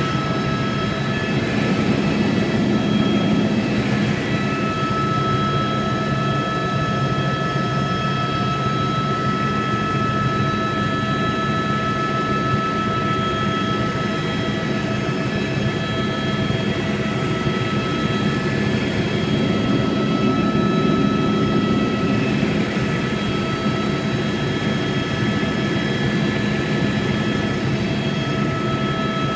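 Helicopter cabin noise in flight: the steady drone of the engine and rotors with a constant high whine over it.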